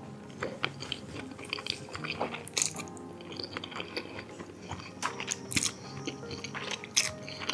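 Close-miked mukbang eating sounds: spaghetti being slurped and chewed, with many short wet mouth clicks scattered throughout. Quiet background music runs underneath.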